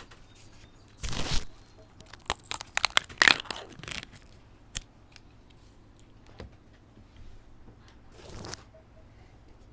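Close-miked paper food packaging crinkling and tearing in a few bursts, with a quick run of sharp crackles in the middle.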